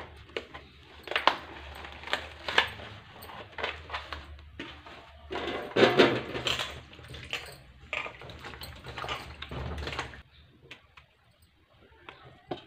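Plastic film crackling and tearing as a knife slits open a punnet of button mushrooms, then the mushrooms tumble from the plastic punnet into a stainless steel plate about six seconds in, the loudest moment. A low steady hum runs underneath and stops about ten seconds in.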